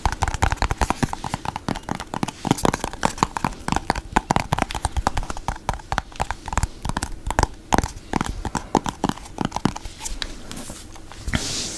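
Wet, sticky mouth sounds from a mouth coated with peanut butter: rapid, irregular tongue clicks and lip smacks, thinning out near the end.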